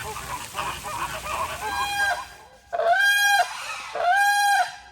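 A flock of American flamingos honking and gabbling, many calls overlapping, then two loud, drawn-out goose-like honks about a second apart near the end.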